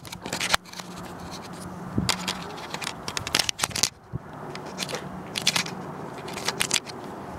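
Irregular clicks and crackles of hands handling a camcorder as it is zoomed and refocused, over a faint steady low hum.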